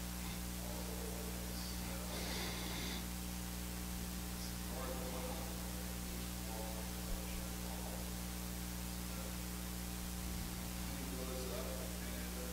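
Steady electrical mains hum, with faint distant speech from someone off-microphone at times and a single small click about seven seconds in.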